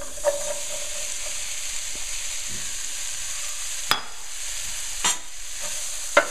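Diced onions sizzling as they go into hot oil and fried spices in a saute pan, a steady hiss. A few sharp knocks against the pan come through it, the loudest near the end.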